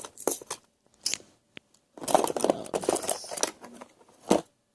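Sewing-kit items being handled and rummaged: a few sharp plastic clicks, then a second or so of crinkly rustling, and one last sharp click near the end.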